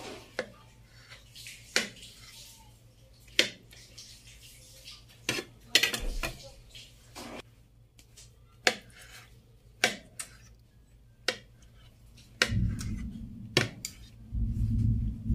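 Kitchen knife slicing mango on a plastic plate: the blade strikes the plate with sharp clicks at uneven gaps, roughly one a second. A low rumble comes twice near the end.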